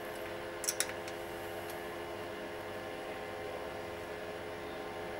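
A steady hum of several fixed tones, with two quick metallic clicks a little under a second in and a fainter one shortly after. The clicks come from a small spanner working a valve adjuster on a Moto Guzzi cylinder head.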